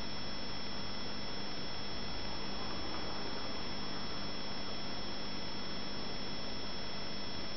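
Aquarium air bubbles rising in a steady curtain, heard as an even hiss, with the tank equipment's steady hum under it.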